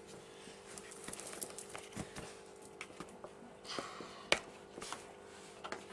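Slime being stirred and worked in a bowl: faint scattered clicks and soft scrapes, with a brief rustle and then one sharper click about four seconds in.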